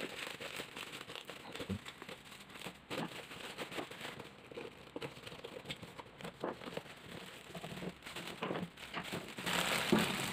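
Plastic packaging crinkling and rustling in short, irregular crackles while a parcel is unwrapped and its cardboard box is cut open. Near the end comes a denser, steadier rustle as the clear plastic bag around the fan motor is pulled off.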